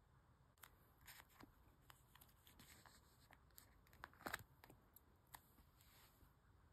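Photocards in plastic sleeves being handled and slipped into binder pages: a few faint rustles and light clicks, the loudest just over four seconds in.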